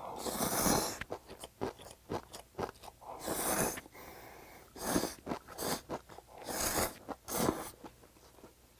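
A person slurping ramen noodles and chewing them, close-miked. There are several long, loud slurps, the first right at the start, with wet chewing and lip smacks in between.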